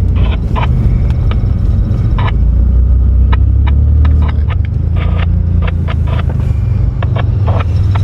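Motor vehicle running, heard from inside: a steady low engine and road rumble with frequent short rattles and knocks, as on a rough road.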